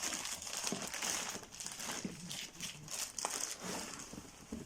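Plastic packaging crinkling and rustling in irregular bursts as items are handled and unwrapped, with a few small clicks; it stops near the end.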